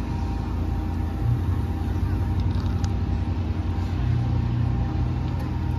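Steady low hum and rumble of a swan boat ride moving along the water, with a faint steady whine above it. The rumble grows a little stronger about four seconds in.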